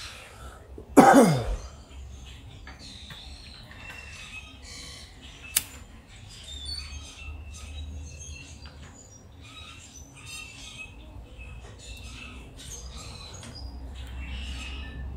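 Small birds chirping steadily in the background. About a second in comes a loud thump with a quickly falling whoosh, and about halfway through a single sharp click.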